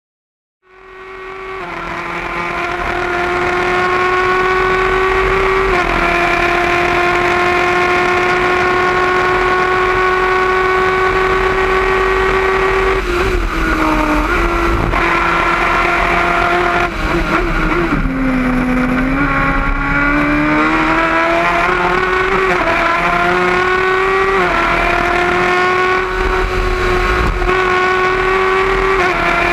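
Gloria C8F formula car's engine heard onboard, fading in over the first few seconds and then running hard at high revs. The note stays high with small steps at gear changes, dips to its lowest about two-thirds of the way through, then climbs again through the gears.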